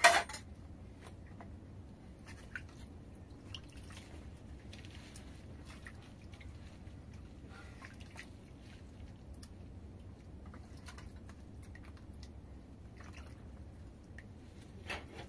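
Hands washing tomatoes in a pan of water: faint drips, small splashes and squishing as the tomatoes are rubbed and lifted. A short loud burst sounds right at the start, and a smaller one near the end.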